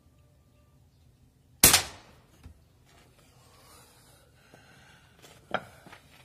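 Barra 1866 Cowboy lever-action air rifle firing: one loud, sharp shot about a second and a half in. Softer mechanical noise and clicks follow, then a second, quieter crack near the end.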